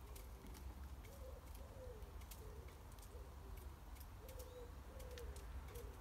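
Wood pigeon cooing: a faint run of soft, low coos, about two a second, with a couple of longer drawn-out notes a little past the middle.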